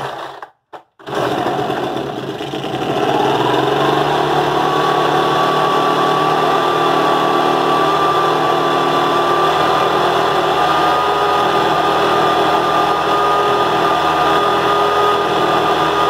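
Two-stroke engine of a Ryobi BP42 backpack blower starting about a second in, then speeding up over the next few seconds and running steadily at high speed, its pitch creeping slowly higher. This is a test run after the carburetor's high-speed jet was set a half turn out.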